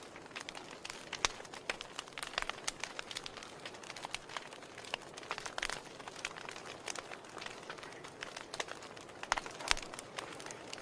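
Wood fire crackling in a fireplace: a steady soft hiss with frequent irregular pops and snaps.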